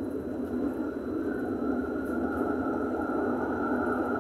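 Tram pulling away from an underground station, heard from inside its rear cab: a steady rumble from the wheels and running gear, with an electric traction-motor whine that slowly rises in pitch as the tram picks up speed. It gets gradually louder.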